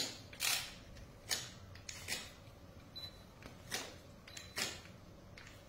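Scissors snipping through a plaster cast bandage, a series of short, crisp cuts about one a second.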